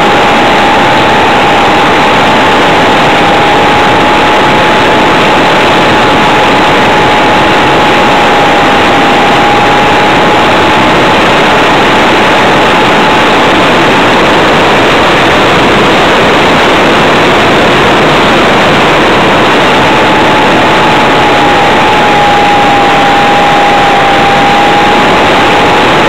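Onboard recording of an RC model Tiger Moth biplane in flight: a loud, even rush of air and motor noise with a steady whine that drifts slightly in pitch.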